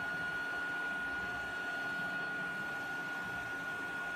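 Benchtop lab equipment running: a steady high-pitched whine over a low hum.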